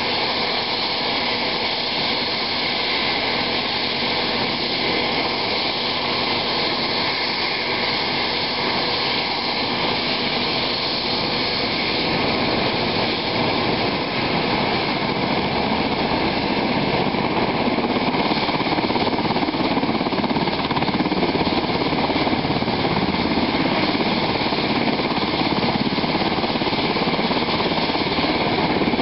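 UH-60 Black Hawk helicopter running on the ground, its twin turboshaft engines and turning main rotor making a steady dense mechanical noise. It grows a little louder about halfway through as the helicopter readies for takeoff.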